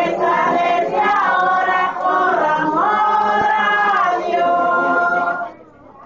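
A group of women singing a rosary hymn to the Virgin without accompaniment, in long held notes; the singing stops near the end.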